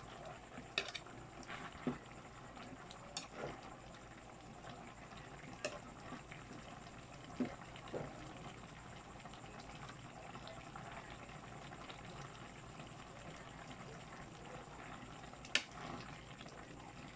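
Chicken pochero stew simmering in a wok with a soft, steady bubbling. A utensil stirring the pechay and vegetables knocks sharply against the pan about eight times, spread unevenly.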